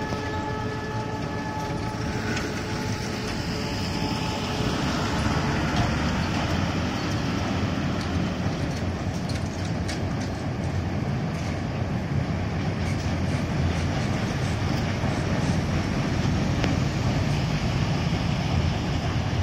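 Freight train of covered wagons behind a WDM-2B diesel locomotive running across a steel truss bridge: a steady, dense noise that swells slightly toward the end. A horn tone sounds at the start and stops about two seconds in.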